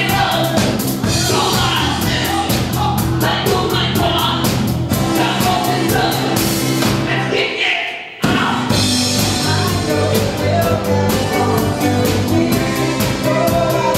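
Live band playing a song with a woman and a man singing over electric guitar and drums. The sound drops out for a split second about eight seconds in, then the music carries on.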